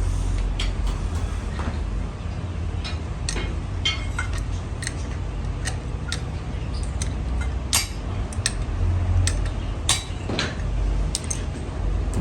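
Irregular metallic clinks and taps of metal tools and parts being handled, over a steady low hum of running machinery.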